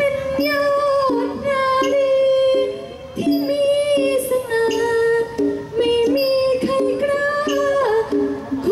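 A woman sings a Thai likay song through a microphone and PA, holding long wavering notes over instrumental accompaniment that repeats a short two-note figure at a steady pulse.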